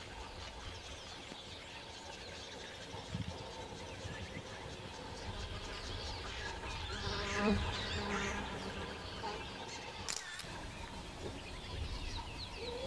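Outdoor ambience of insects buzzing and birds chirping over a low rumble, busiest around seven to eight seconds in, with a single sharp click about ten seconds in.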